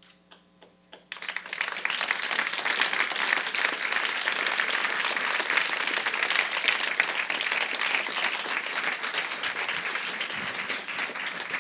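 Audience applause: a few scattered claps, then about a second in the whole audience breaks into dense, steady clapping, which cuts off suddenly near the end.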